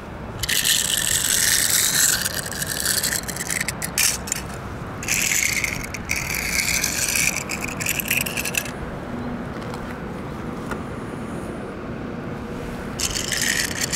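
Small die-cast toy cars rolled by hand along a rough concrete ledge: their wheels scrape and rattle in spells of a few seconds at a time, with a few sharp clicks about four seconds in.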